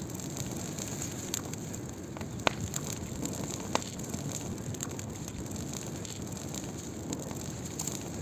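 Wood fire burning, with a steady rush of flames and scattered crackles. Two sharper pops stand out, about two and a half seconds in and again near four seconds.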